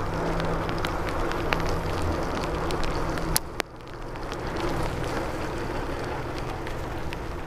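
Bicycle tyres hissing on wet pavement with wind on the microphone while riding in the rain, with scattered sharp clicks and a faint low hum in the first three seconds. The sound drops suddenly after a loud click about three and a half seconds in.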